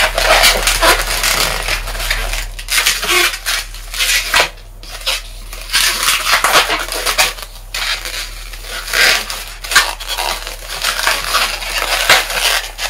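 Latex modelling balloons being twisted and handled, rubbing against each other and against the fingers in an irregular run of scratchy rubs.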